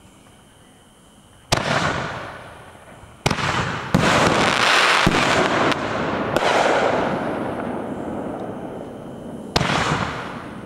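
Consumer aerial fireworks bursting overhead: a sharp bang about a second and a half in, a quick run of bangs from about three to six and a half seconds, and another near the end. Each bang trails off in a long hissing, crackling tail as the glittering stars burn out.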